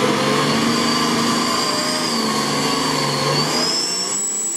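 Modified off-road 4x4's engine revving under load as the vehicle drives up out of deep mud, with a thin high whine that climbs in pitch near the end.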